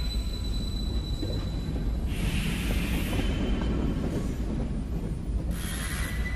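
Stage fog jets hissing in two bursts of about a second each, over a steady low rumble.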